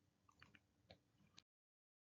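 Near silence: a few faint small clicks in the first half, then dead digital silence.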